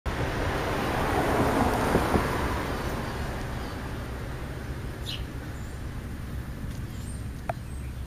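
Road traffic: a vehicle passes, swelling and fading over the first three seconds above a steady low rumble. A short high chirp comes about five seconds in.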